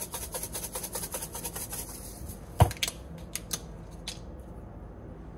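Plastic spice shaker shaken rapidly over a tub of brine, about seven shakes a second, stopping after about two seconds. Then one sharp knock as the shaker is set down on the countertop, followed by a few light clicks.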